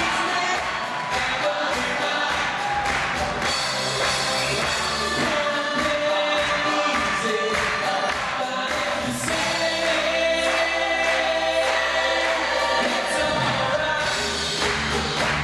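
Gospel choir singing live with a band, a steady drum beat driving the song.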